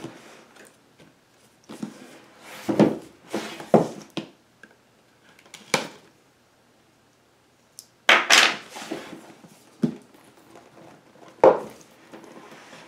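Small knife slitting the tape seals on a cardboard box, with scrapes, clicks and thumps as the box is turned and handled on a wooden table. A sharp scrape about eight seconds in is the loudest sound, after a short near-silent gap.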